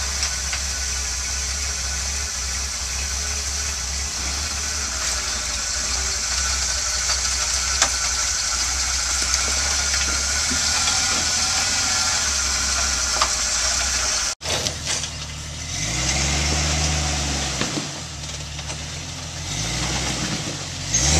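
Rock-crawling Jeep engine idling steadily. About two-thirds of the way in there is an abrupt cut, and a Jeep Cherokee XJ's engine takes over, revving up and down as it climbs over boulders.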